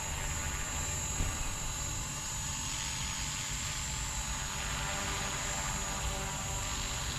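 Blade 230S electric RC helicopter in flight: a steady whine of its brushless motors over the hum of the spinning rotor blades.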